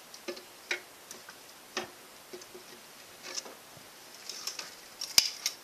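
Irregular light clicks and knocks of metal parts being handled at an opened Ford Model T transmission, with one sharp click near the end.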